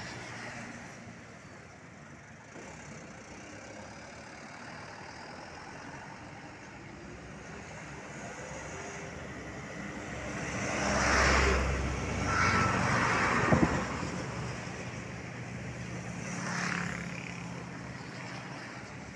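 Light trucks driving past on the road, engine and tyre noise swelling to a loud pass-by with deep rumble about eleven seconds in and another just after it, with a sharp click around thirteen and a half seconds. Another, quieter vehicle passes near the end.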